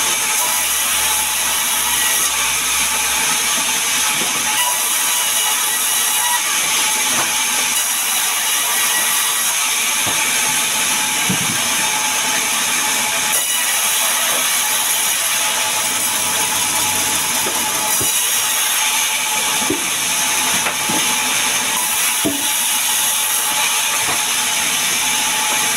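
Sawmill band saw running and cutting lengthwise through a sengon log: a steady, loud, hissing saw noise, with a few sharp knocks scattered through it.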